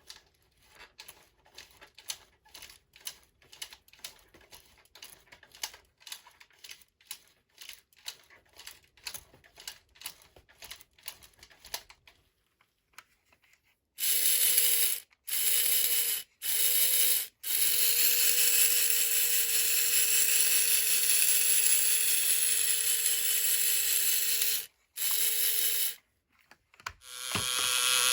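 Tin toy mechanism: about twelve seconds of ratchet-like clicking, two or three clicks a second, then after a short pause a loud steady whir from the running mechanism that stops and restarts briefly several times.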